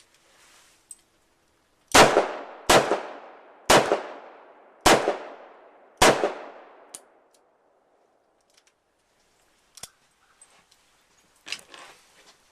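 Five .357 Magnum shots from a Smith & Wesson 360 revolver, fired about a second apart, each with a ringing tail. A few faint clicks follow near the end.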